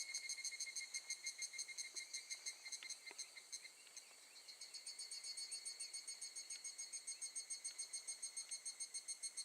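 Higurashi (evening cicada) calling, a fast repeated 'kana-kana' pulsing of about six pulses a second. The call fades briefly about three seconds in, then builds back up.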